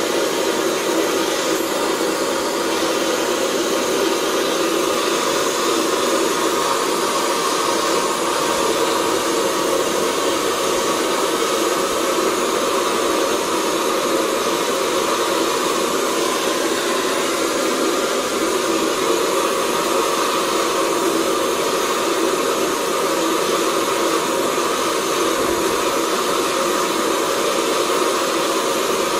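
Steady mechanical whirring noise, unchanging throughout, like a motor or blower running.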